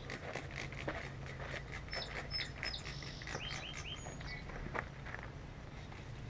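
A hand spray bottle of soapy water squirted in a quick run of spritzes onto a big truck tire's bead to lubricate it for breaking the bead, stopping a little past the middle. A few short bird chirps around the middle, over a steady low hum.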